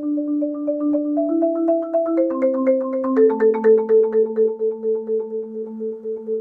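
Marimba played with four mallets: rapid repeated strokes sounding chords. The chord changes a few times in the first three seconds and is then held from about three seconds in.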